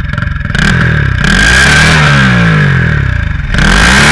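Turbocharged Honda Titan 160 single-cylinder engine revved twice while the bike stands still, each rev falling back toward idle, with a high whine over the revs. The blow-off valve is isolated, and no flutter or different noise comes through.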